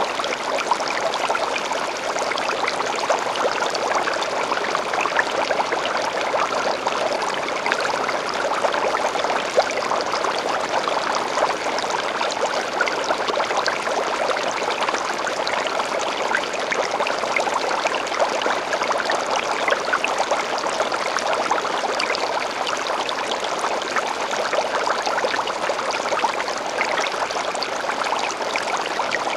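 Water in a home aquarium trickling and splashing steadily, many tiny splashes run together into an unbroken rush, the sound of the tank's water circulation.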